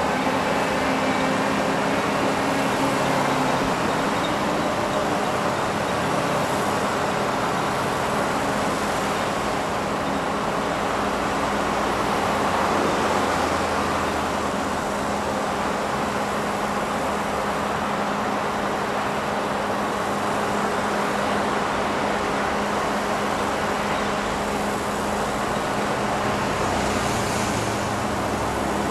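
Heavy diesel earthmoving machinery (wheel loader and excavator) running steadily at a tunnel face, a continuous engine drone with a steady low hum underneath.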